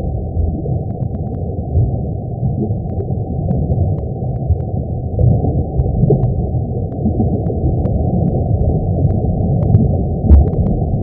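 Sonification of the Sun: a steady, low rumbling noise, with faint clicks here and there and one more distinct click near the end.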